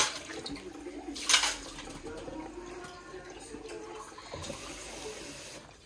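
Water running from a kitchen tap into a sink as dishes are rinsed, with one sharp clatter about a second in.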